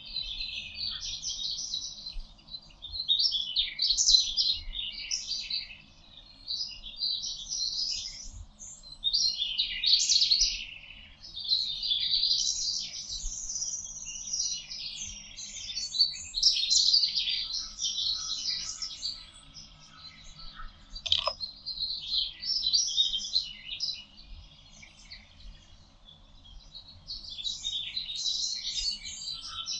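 Songbirds singing in a forest chorus: quick, high, twittering phrases of a second or two that follow and overlap one another with short gaps between.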